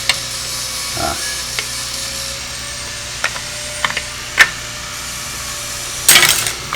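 Hard plastic parts of a leaf blower's switch housing being handled and fitted together: scattered light clicks and taps, a sharper click about four and a half seconds in, and a short rattling scrape near the end.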